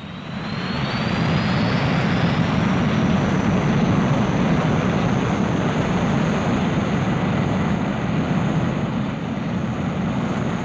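Jet aircraft engines running at high power, a dense noise that swells over the first second or two, with a high turbine whine that climbs in pitch and then holds steady.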